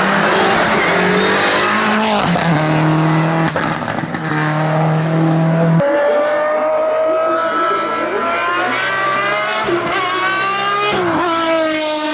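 A race car's engine running at high revs under hard acceleration. The note holds for a few seconds, changes abruptly about halfway through, then climbs steadily in pitch over several seconds, with breaks where the gears are changed.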